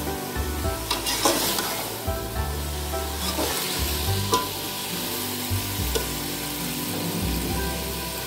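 Potato cubes and peas frying in masala in an aluminium pot, stirred with a perforated metal skimmer that scrapes against the pot now and then over a continuous sizzle.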